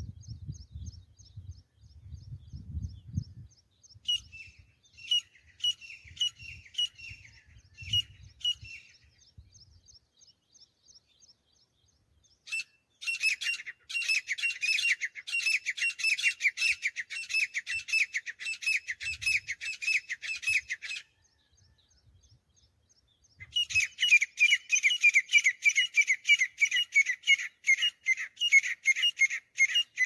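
Grey francolin calling: fainter repeated calls early, then two long bouts of rapid, shrill repeated notes, the first starting about halfway in and lasting around eight seconds, the second starting a few seconds later and running into the end.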